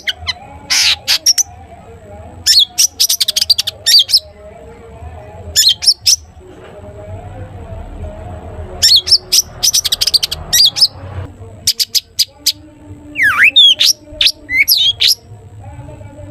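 Long-tailed shrike (cendet) singing in the 'toet toet' style: five bursts of rapid, sharp chirps and quick gliding whistles with short pauses between them.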